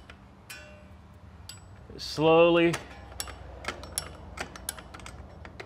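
Self-adjuster star wheel of a rear drum brake clicking as it is turned out by hand, a series of light metallic clicks. A short hum from a person comes about two seconds in.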